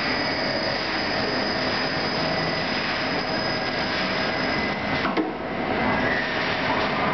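Metal lathe turning the end of a metal nut blank under a flood of coolant: a steady cutting and spraying noise with a faint high whine. About five seconds in there is a sharp click and the noise briefly dips as the cutting tool pulls away from the part.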